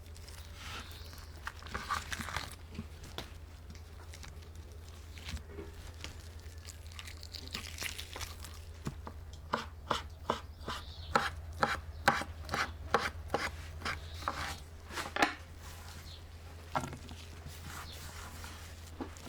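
Knife chopping food on a cutting board: scattered cuts, then a steady run of about two or three strokes a second in the middle, over a steady low hum.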